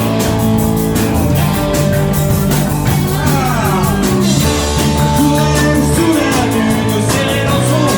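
A rock band playing live, with electric guitar, bass and drums, and a bending guitar line or singing voice over the top.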